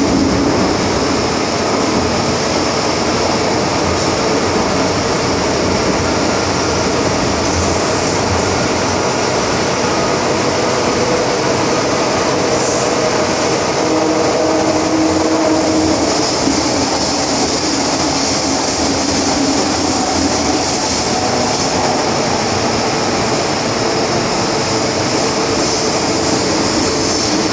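Hong Kong MTR Island Line M-Train running through a tunnel, heard from inside the carriage: a loud, steady rumble and rush of wheels and running gear, with a few faint humming tones.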